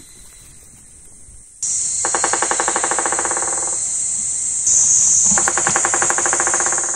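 White-backed woodpecker drumming on a dead tree trunk: two rapid, even rolls of about two seconds each. A steady high insect buzz starts suddenly about a second and a half in.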